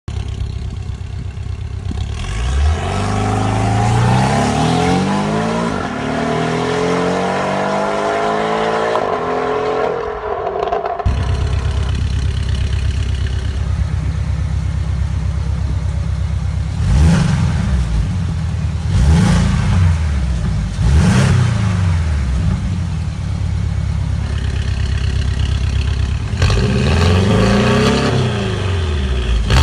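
Porsche 718 Boxster/Cayman engine and exhaust: a long pull under acceleration with the pitch climbing for about eight seconds, then cutting off suddenly. After a spell of steady running, three short revs that rise and fall quickly, and a cluster of quick revs near the end.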